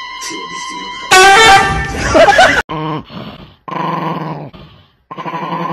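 A sudden, very loud cry with a bending pitch about a second in, lasting about a second and a half. Then a Chihuahua growls in three rough bursts.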